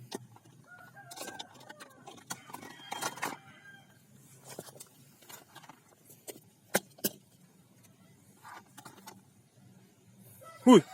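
Chickens clucking now and then in short pitched calls, with two sharp clicks a little past halfway.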